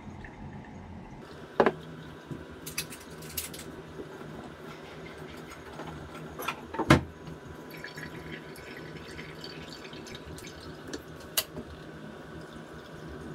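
Vinegar-and-eggshell liquid trickling and dripping from a glass jar through cheesecloth into a glass bottle, a faint steady pour. A few sharp glass clinks and knocks from the jars being handled, the loudest about seven seconds in.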